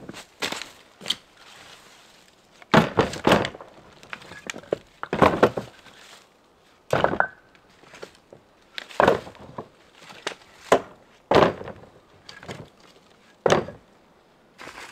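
Split firewood logs knocking together as they are tossed one by one into a wheelbarrow: sharp wooden knocks every second or two, some in quick pairs.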